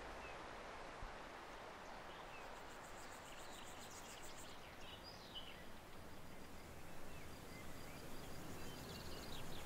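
Faint outdoor ambience: an even hiss with a few soft bird chirps, mostly in the second half.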